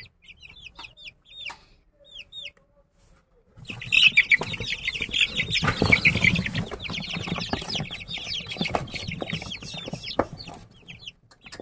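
Aseel chicks peeping. A few scattered peeps come first. About three and a half seconds in, a dense chorus of loud peeps starts, with wings flapping and scuffling as the chicks crowd together. It eases off near the end.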